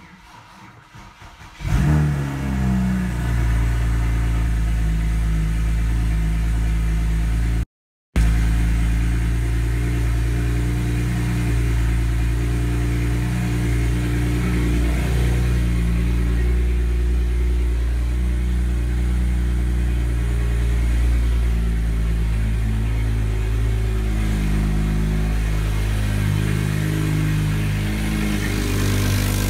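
BMW N54 3.0-litre inline-six, newly converted to a single turbo, starting for the first time: it fires up about two seconds in with a short flare of revs that settles into a steady idle. The sound cuts out for a moment about eight seconds in.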